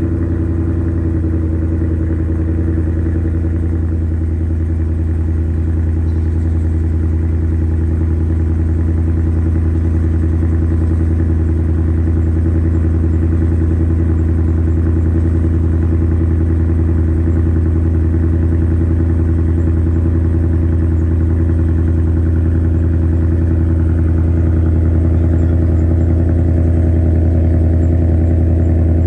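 A 2024 Ford Mustang Dark Horse's 5.0-litre V8 idling steadily through its quad exhaust just after a cold start.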